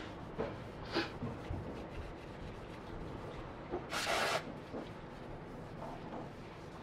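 Cloth rag rubbing over a motorcycle engine's metal side cover, with one short hiss of aerosol parts cleaner sprayed about four seconds in.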